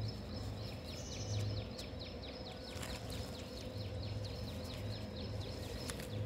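A small animal chirping steadily: a rapid run of short, high, falling chirps, about four a second, over a faint low rumble.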